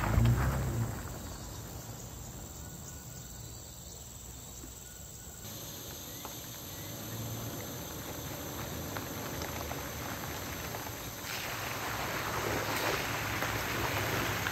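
Insects chirring steadily in the roadside jungle while a Toyota FJ Cruiser's V6 runs, quiet while the car is off in the distance. It grows louder from about two-thirds of the way in, with tyre noise on the wet gravel track, as the SUV drives back towards the listener.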